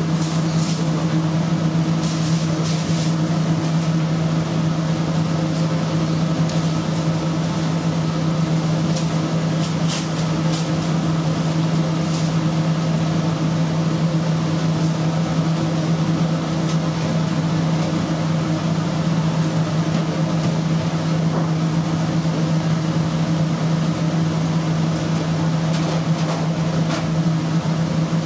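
Steady low hum of kitchen machinery at a constant pitch, with a few faint clicks now and then.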